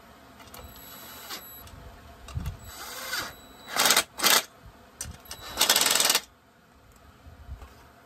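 Cordless drill running in short spurts as it drives screws into a chainsaw's housing: two quick runs about four seconds in, then a longer one a moment later.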